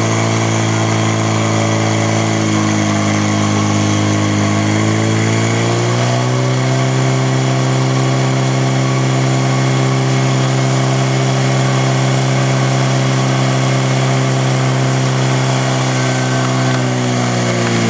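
Portable fire pump engine running hard at high revs, pumping water through the hose lines to the spray nozzles. Its pitch drops a few seconds in, climbs back about six seconds in and holds steady, easing slightly near the end.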